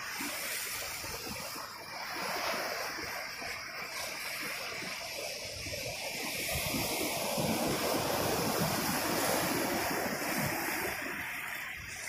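Ocean surf: waves breaking and washing up the shore, a continuous rushing that swells louder in the second half and eases off near the end.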